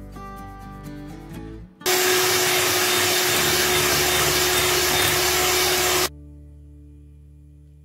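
Guitar background music. About two seconds in, an electric hand mixer starts up, beating eggs and sugar in a glass bowl. It runs at a steady pitch for about four seconds and then cuts off suddenly.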